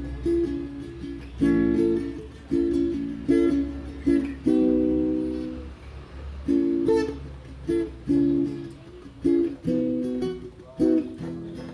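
Background music: a light plucked-string tune of short chords and notes that fade after each pluck.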